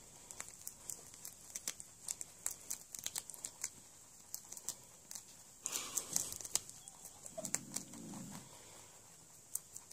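Two rabbits chewing and tearing a fresh green leaf: a rapid, irregular run of small crisp crunching clicks as they bite off pieces, with a denser tearing burst about six seconds in.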